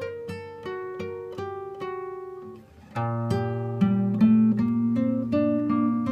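Background music on acoustic guitar: a run of single plucked notes. The music dips briefly just before three seconds in, then comes back fuller, with low notes held underneath.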